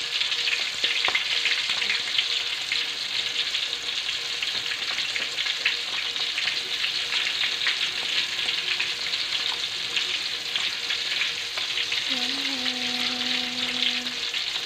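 Stuffed milkfish frying in hot oil in a pan: a steady, dense sizzle with fine crackling from the bubbling oil.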